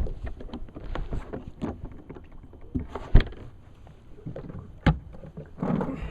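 Irregular knocks, clicks and thumps of handling aboard a bass boat, two sharper knocks standing out about three and five seconds in, with rustling near the end.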